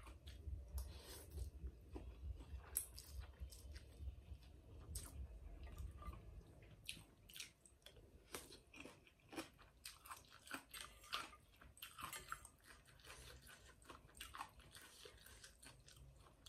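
Close-up eating sounds from rice noodles and soup: chewing and wet mouth smacks, heard as many short clicks. A low rumble under the first half dies away.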